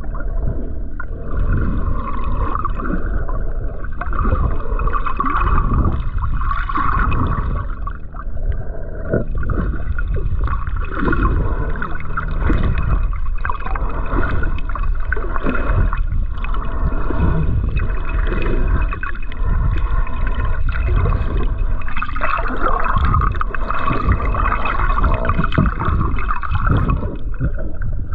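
Muffled water gurgling and sloshing close to the microphone, in an unbroken wash with irregular surges.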